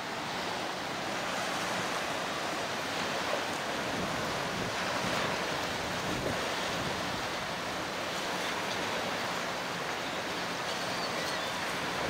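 Steady storm wind from Hurricane Michael rushing over the microphone, with choppy, wind-driven water splashing against a wooden dock.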